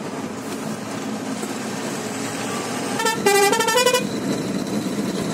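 Steady road and engine noise of a truck on the move. About three seconds in, a musical horn plays a short tune of stepping notes for about a second.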